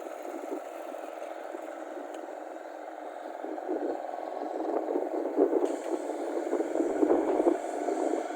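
Rice combine harvester running, its engine and exhaust noise mixed with irregular rattling and clattering, growing louder from about halfway through.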